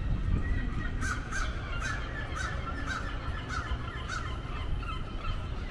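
A bird calling about seven times in quick succession, roughly two calls a second, over a steady low background rumble.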